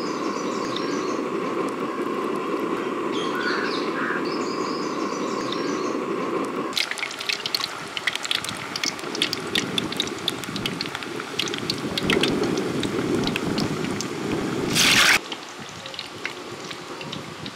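Prawn vadas deep-frying in hot oil: a steady sizzle full of sharp crackles and pops, starting abruptly about seven seconds in, with a brief loud hiss near the end before it quiets. Before that, a steady low hiss with a few bird chirps over it.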